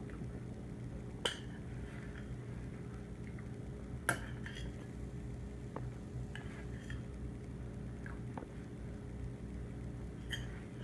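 A toddler's metal spoon clinking and scraping in a bowl of leftover mush, with two sharp clinks about a second and four seconds in and a few lighter taps after. A steady low hum runs underneath.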